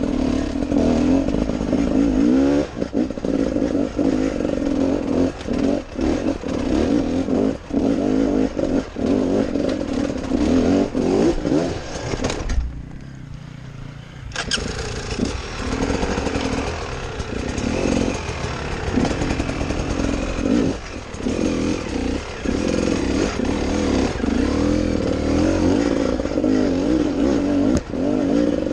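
Enduro dirt bike engine heard from on board, revving up and down as the bike is ridden over a rocky track, with clattering knocks from the bike over the stones. About halfway through the engine sound turns quieter and duller for a couple of seconds, then picks up again.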